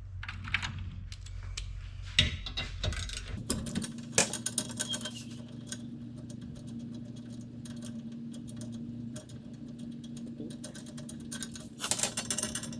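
Clicks and clinks of small metal parts and hand tools being handled on a workbench, with a steady low hum coming in a few seconds in and a quick flurry of clatter near the end.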